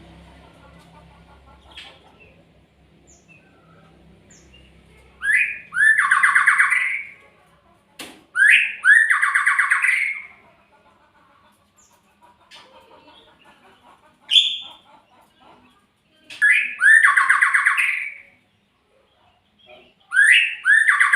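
Murai songbird calling: four loud phrases, each a short rising note followed by a harsh, rapidly pulsed call, coming every few seconds with a few short single notes in between.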